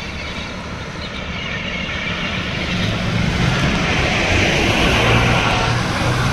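A TVS Apache RR310 motorcycle's single-cylinder engine running as the bike rides up toward the listener. It grows louder over the first few seconds and is loudest about four to five seconds in.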